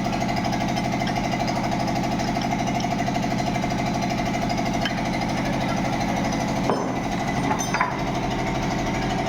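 Electric water pump motor running steadily with a fast rattling buzz, with two brief knocks about two-thirds of the way through.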